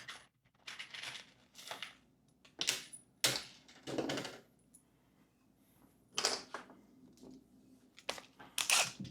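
Wooden 1x2 strips being picked up and handled: a scattering of short, light knocks, clatters and scrapes with quiet gaps between them, the sharpest click about three seconds in.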